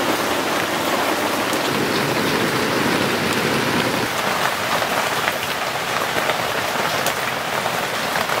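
Steady rain falling, a continuous hiss with scattered drop ticks.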